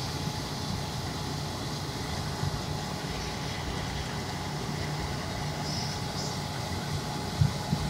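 Wirtgen asphalt cold milling machine at work, its diesel engine and cutting drum making a steady mechanical drone as it grinds off the road surface and conveys the millings into a truck. A single sharp knock sounds near the end.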